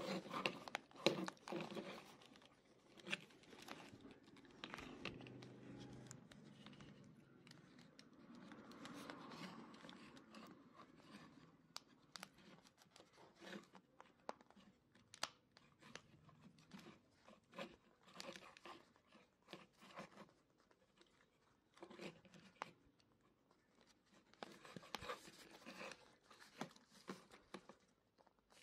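Faint rustling, scraping and small clicks of hands working a replacement ear pad onto a Sony MDR-XB950B1 headphone ear cup, tucking the pad's edge under the cup's rim. The clicks are loudest in the first two seconds.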